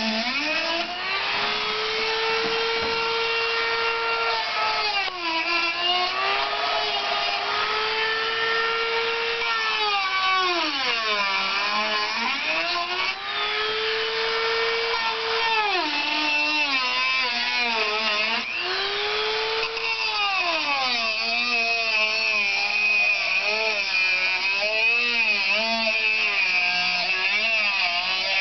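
Small handheld rotary tool cutting into the top of a slotted pool deck drain. Its high whine sags in pitch each time the bit bites into the cut and climbs back as it frees up, over and over.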